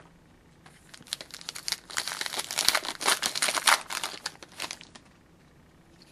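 A trading card pack wrapper being torn open and crinkled, a dense crackly rustle that starts about a second in and stops at about five seconds.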